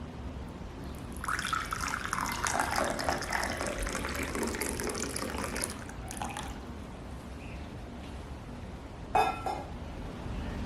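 Liquid running or being poured for about four and a half seconds, then a short ringing clink about nine seconds in.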